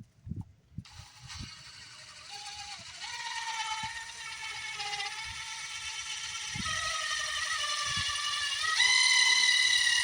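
Power drill starting up and boring into metal with a small bit. The motor whine steps up in pitch and gets louder several times as the trigger is squeezed harder, and is loudest near the end.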